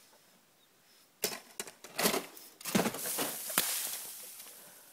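Snow crunching, scraping and falling in a run of rushing bursts starting about a second in, with one sharp crack, then a hiss that fades away.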